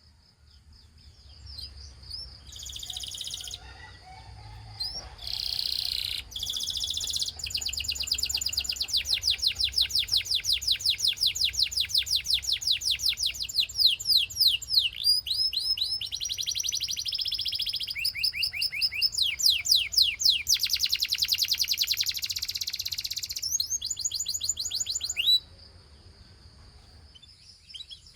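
Gloster canary singing a long, high song of rapid trills and repeated notes, switching to a new trill every few seconds. It stops abruptly near the end.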